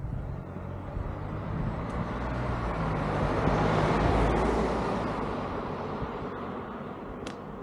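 A car driving past on the street, growing louder to a peak about four seconds in and then fading away.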